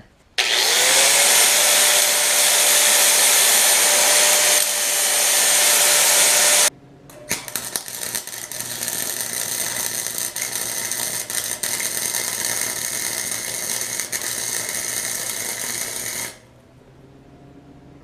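A power tool, likely an angle grinder, spins up with a rising whine and runs for about six seconds before cutting off suddenly. Then a Harbor Freight welder crackles and pops steadily for about nine seconds as it welds a steel exhaust header to its midpipe to seal an exhaust leak, and stops near the end.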